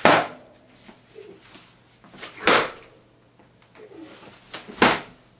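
Practice swords striking in a sparring drill: three sharp hits about two and a half seconds apart, each a short smack that fades quickly.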